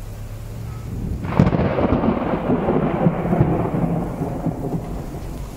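A loud thunderclap breaks about a second in, crackling and then rumbling away, fading over the next few seconds, over falling rain.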